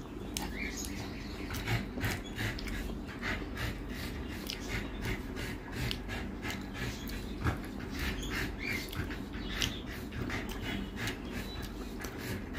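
Eating by hand: fingers squishing and mixing rice on a plate, and chewing with mouth clicks, a run of soft irregular clicks and smacks.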